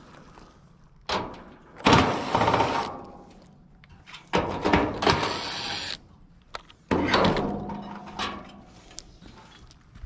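Cordless Makita impact driver run in three short bursts of about a second each, driving screws on a heat pump outdoor unit's top panel.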